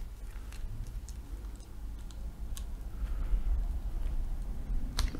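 Fingers picking and scratching at the wrapping of a pack of game cards, trying to get it open: scattered small clicks and crinkles over low handling noise, with a sharper click near the end.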